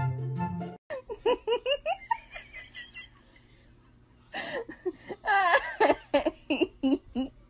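Background music stops abruptly under a second in. Then a person laughs in quick, high-pitched giggling bursts, quieter at first and louder from about halfway through.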